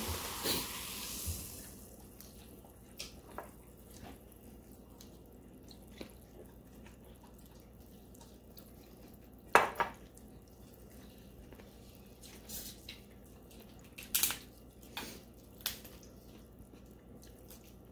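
Eating noises at the table: small clicks and cracks of seafood shell being picked apart by hand and mouth smacking, over a hiss that fades in the first two seconds. A single sharp knock comes about ten seconds in, and a quick run of clicks follows near the end.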